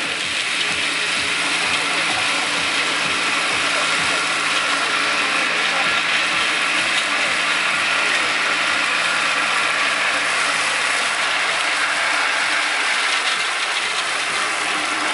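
Komondor SFK-105 two-drum mower running steadily while cutting grass, its PTO-driven drums and gearbox spinning behind a Mitsubishi MT16D compact tractor whose engine runs under load.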